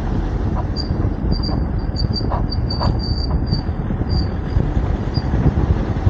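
Wind buffeting the microphone of a camera mounted outside a moving car, over a steady low rumble of road and engine. A run of short high squeaks comes and goes through the middle, with a couple of faint knocks.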